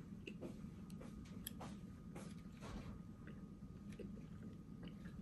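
Faint, scattered clicks of wooden chopsticks against a ceramic plate while picking apart simmered fish, over low room tone.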